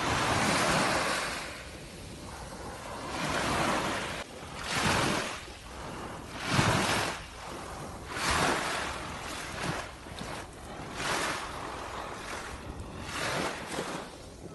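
Waves washing on the shore, with wind on the microphone: a noisy hiss that swells and fades every second or two.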